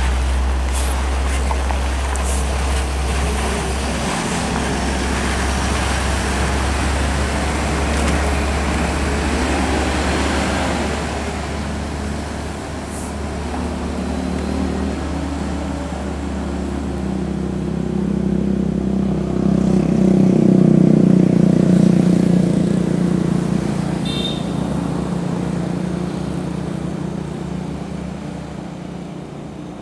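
Diesel engine of a Mercedes-Benz-chassis intercity coach pulling away and driving off across a gravel lot. It starts as a deep steady hum; about two-thirds of the way through it rises into a louder drone, then fades toward the end.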